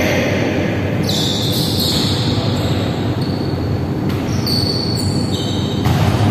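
A volleyball thudding three times, bounced or struck, over a steady rushing background noise; the last thud comes near the end as the ball is put into play.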